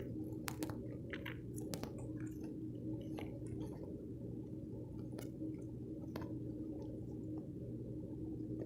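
A person chewing soft tacos with the mouth close to the microphone: wet smacks and small clicks at irregular intervals over a steady low hum.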